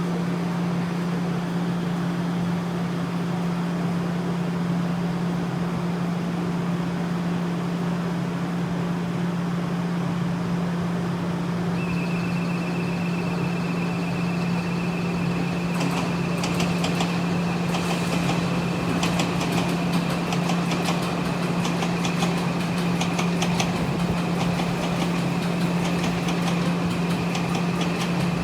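Steady low hum with an electric train passing: a high steady whine sets in about twelve seconds in, and from about sixteen seconds a long run of rapid clicks follows, the wheels of the passing cars going over rail joints.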